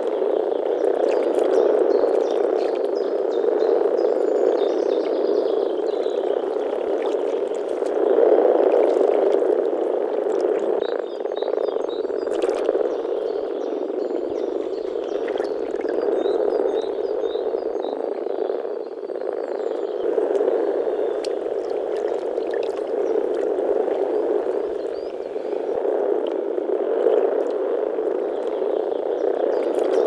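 Breeding chorus of many male European common frogs (Rana temporaria), a continuous deep grumbling made through their vocal sacs as the males call to mate.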